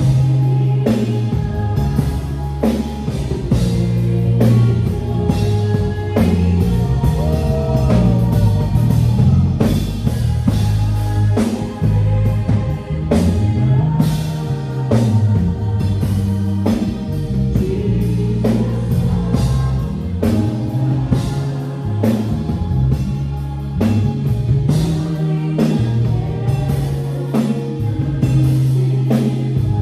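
Band music with drum kit, bass guitar and guitar at a steady beat, with no one speaking over it.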